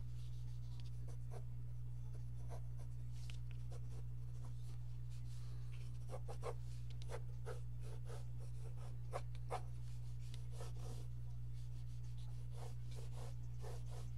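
Pencil sketching on paper: graphite strokes scratching across the sheet in short runs, busiest in the middle, over a steady low hum.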